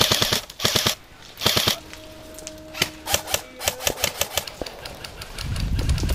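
Airsoft rifle firing three short bursts of rapid automatic shots in the first two seconds, a fast rattle of sharp clicks, followed by scattered single shots. A low rumble comes in near the end.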